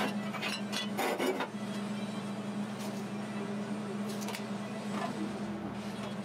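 Clinks and knocks of steel parts and tools being handled on a steel welding table, a cluster about a second in and a few single taps later, over a steady low electrical hum.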